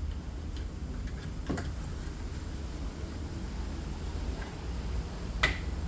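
Light handling noises of a boot trim cover being put into place, with a few faint clicks and one sharp click a little over five seconds in, over a steady low background hum.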